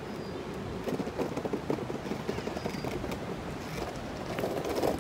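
Longboard wheels rolling over paving, a steady rumble with a stream of irregular clicks that grows louder near the end.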